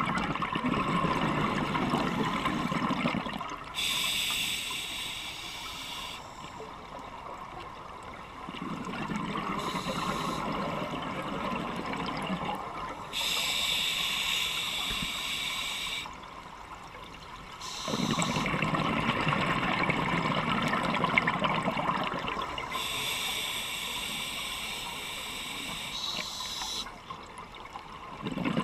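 Scuba diver breathing through a regulator underwater: a hiss on each inhale, then a burst of exhaled bubbles rumbling, in a slow cycle three times over.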